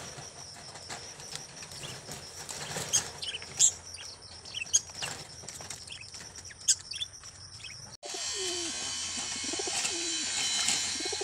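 Pigeons flapping their wings in a wire cage, with several sharp claps. After a cut, pigeons cooing, in low rolling calls repeated a few times.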